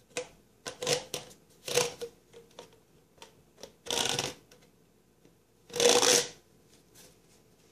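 Corrugated plastic flex P-trap hose being handled and flexed: a series of short rustling, scraping sounds, the loudest and longest about six seconds in.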